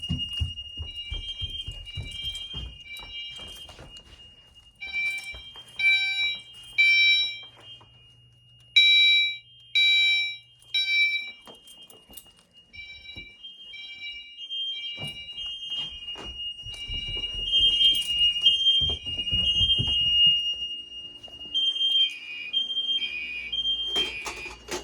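Fire alarm system in alarm: several fire alarm horns and a chime (Gentex Commander and Simplex TrueAlert appliances) sounding together in the code-3 temporal pattern, bursts in threes with a pause between, over a steady high tone. Very loud.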